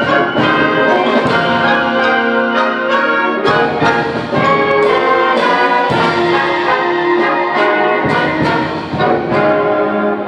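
High school symphonic band playing loudly, brass-led chords with repeated sharp percussion accents.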